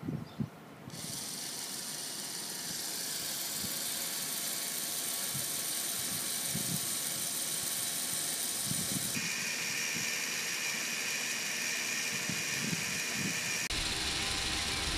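LEGO Mindstorms NXT servo motors and plastic gears of a pan-tilt camera rig running with a steady high whir. A low rumble joins near the end.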